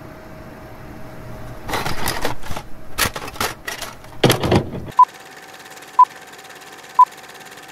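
Film countdown leader sound effect: a steady fast projector rattle with a short beep once a second, three times. Before it, a couple of seconds of loud crackling, noisy hits.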